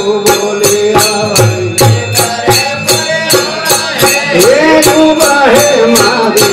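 Marwari devotional folk music: a plucked tandoora droning under a wavering melody, with a steady beat of jingling metal percussion at about four strokes a second.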